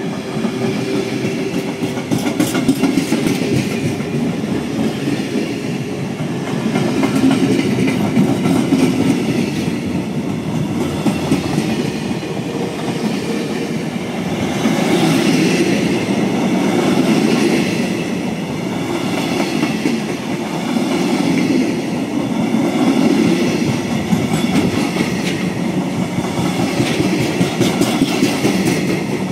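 Empty freight flat wagons rolling past close by, their wheels rumbling and clacking over the track. The sound swells and dips every few seconds as the wagons go by.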